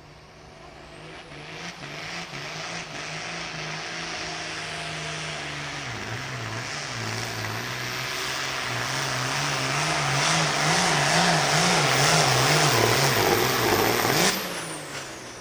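Pro Field pulling tractor's turbocharged diesel engine under full load, growing louder over the run with its pitch wavering up and down. A high whistle rides above it. About fourteen seconds in the engine is cut off suddenly and the whistle falls away.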